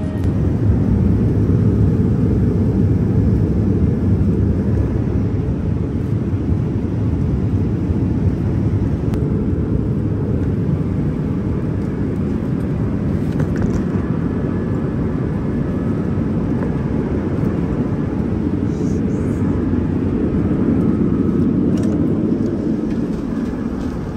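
Steady low rumble of an airliner's engines and airflow, heard inside the passenger cabin in flight.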